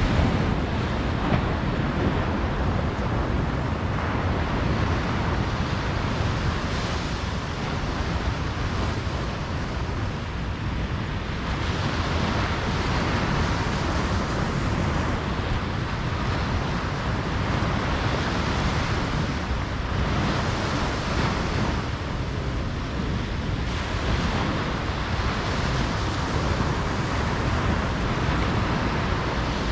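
Ocean surf washing onto a beach, swelling and easing every few seconds over a steady low rumble.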